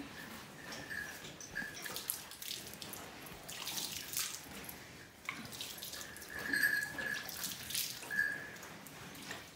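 A cow being milked by hand: streams of milk squirting into a pail in irregular hissing spurts. An on-and-off high steady tone sounds behind it.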